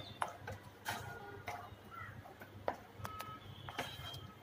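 Spatula stirring thick spinach gravy in a steel kadai: irregular light taps and scrapes of the spatula against the metal pan, over a faint steady hum.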